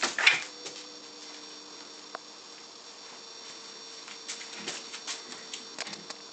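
Scuffling and scattered light tapping as a large dog and a kitten tussle at a carpeted cat tree, with a short loud rustling burst at the start.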